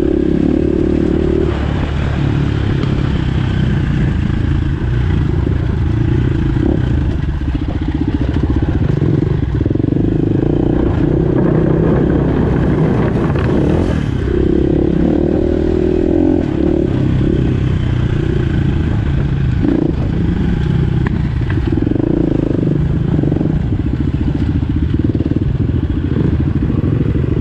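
Dirt bike engine heard up close from the bike being ridden, its revs rising and falling as it works along a rough dirt trail.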